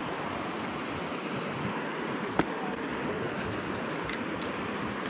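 River water rushing steadily over a rocky riffle. A single sharp click comes about halfway through, followed by a quick run of faint ticks.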